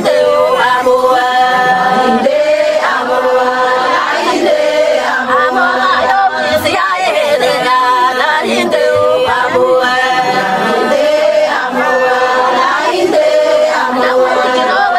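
Somali Bantu song sung by a group of voices together, long held notes in phrase after repeated phrase.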